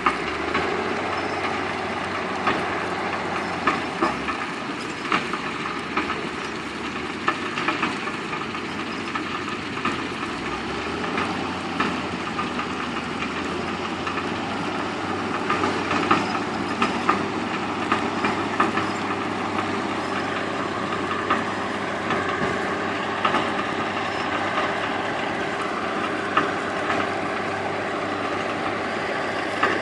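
Heavy diesel machinery running steadily with a low hum, with frequent sharp clanks and knocks throughout.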